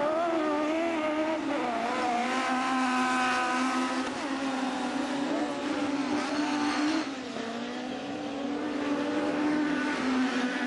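Autocross race cars' engines running hard at high revs, the pitch rising and falling as they accelerate, lift and shift gears. The sound dips a little about seven seconds in.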